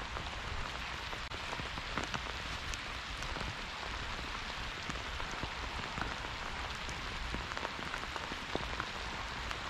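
Heavy rain falling steadily: a dense hiss of drops with many small scattered ticks.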